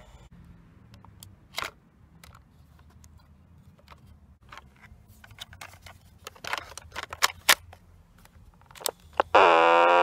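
Sharp plastic clicks and knocks of a cassette tape being handled and set into a Sony TCS-300 cassette recorder's compartment. Near the end a much louder, harsh sustained tone cuts in abruptly for under a second.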